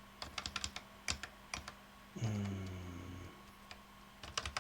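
ZX Spectrum keys being pressed: a quick run of separate clicks in the first second and a half, a few more near the end. About two seconds in, a low steady tone lasts about a second.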